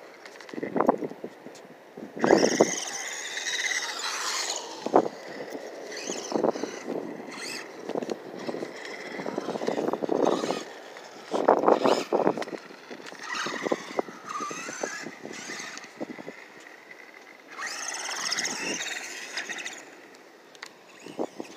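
Small Volcano 18 electric RC truck being driven hard, its motor and drivetrain whining in several bursts as it speeds up and slows down. Sharp knocks and rattles come in between as it bounces over the concrete.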